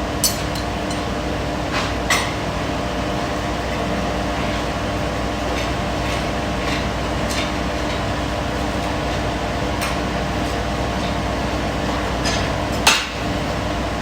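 Farrier's forge running with a steady roar while the steel for a horseshoe heats, broken by three sharp metallic clinks: one near the start, one about two seconds in and a louder one near the end.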